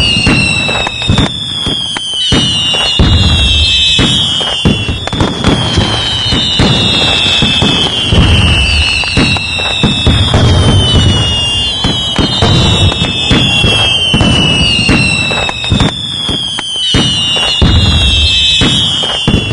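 Fireworks going off: a falling whistle about every three seconds, over dense crackling pops and low booms.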